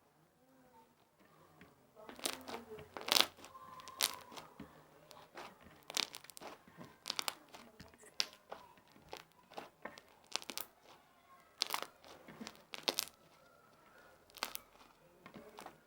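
Fluffy shaving-foam slime squeezed and stretched by hand, giving irregular sharp pops and crackles that start about two seconds in.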